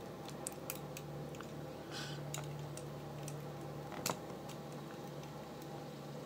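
Light scattered clicks and taps of a loom hook and rubber bands against a plastic Rainbow Loom as bands are hooked and looped over, the sharpest click about four seconds in.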